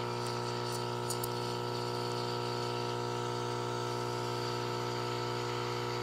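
Rancilio Silvia Pro X dual boiler espresso machine frothing milk and pulling a shot at the same time: a steady hiss from the steam wand in the milk pitcher, over the even hum of the machine's vibratory pump during extraction.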